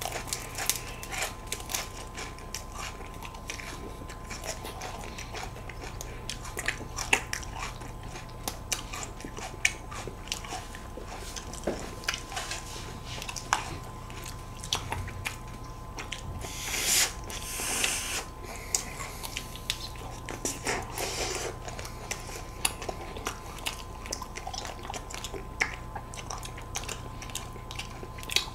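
Close-miked eating of ice cream cones: biting and chewing, with many small crunches and clicks from the wafer cone.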